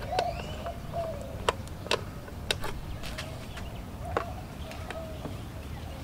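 Irregular sharp clicks and taps of a screwdriver working a screw in the plastic head cover of a MotorGuide Xi5 trolling motor, with a bird calling faintly in the background.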